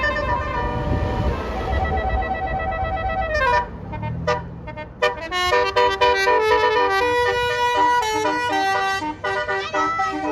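Bus telolet horn (Basuri multi-trumpet horn) playing a tune of several notes sounding together. The tune slides down in pitch and breaks off about three and a half seconds in. After a short gap a new run of quickly changing notes starts and carries on, with a low rumble under the opening seconds.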